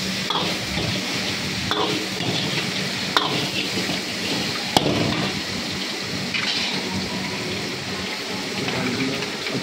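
Steady sizzle of chicken, onion and capsicum stir-frying in a wok, alongside chicken lollipops deep-frying in oil. A metal ladle stirs and knocks against the wok about four times in the first half.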